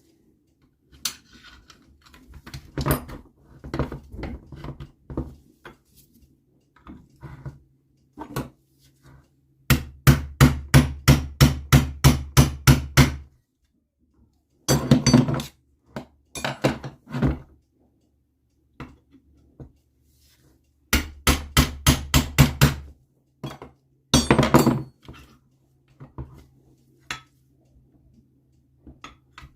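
Hammer tapping on an NSU Quickly two-speed engine's case to split the second case half from the third: runs of quick, even blows at about four a second, once about ten seconds in and again past twenty seconds, with scattered single knocks between.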